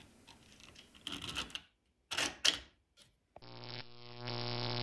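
Clicks and scrapes of a 3D-printed plastic belt idler being handled and slid onto an aluminium extrusion, with two sharper knocks about two seconds in. About three and a half seconds in, a steady synthesized drone starts and holds.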